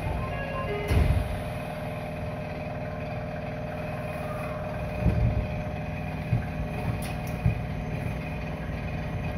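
Steady hum inside a Nagoya Municipal Subway Higashiyama Line car standing at a station, with several low thumps, the loudest about a second in and about five seconds in.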